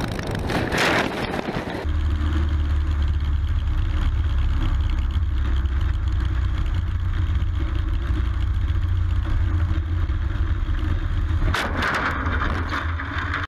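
Light plane's engine and wind drone steadily as heard by a camera mounted on the aircraft, after a brief noisy rush in the first two seconds. About eleven and a half seconds in, a sudden burst of crashing noise breaks in as the plane goes into the trees.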